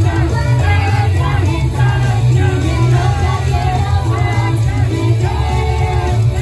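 Live J-pop idol group performance: female voices singing over loud pop music with a heavy, steady bass.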